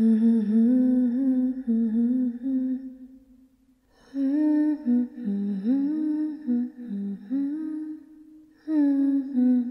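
A wordless voice humming a slow, wavering melody in three phrases, with a pause about three seconds in and a shorter one near the end.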